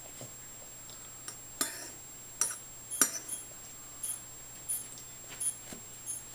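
A spoon clinking and scraping against a ceramic bowl of SpaghettiOs: light, irregular taps, about a dozen, some with a brief high ring.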